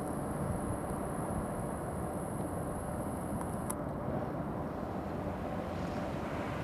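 Steady low outdoor rumble with a background hiss, and a thin high whine that stops about four seconds in.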